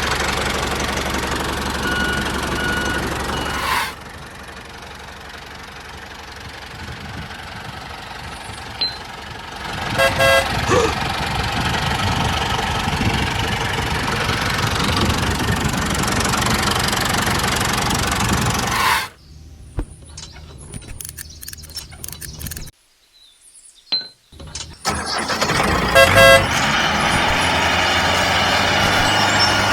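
Tractor engine running, with short horn honks, the sound cutting abruptly between several edited segments.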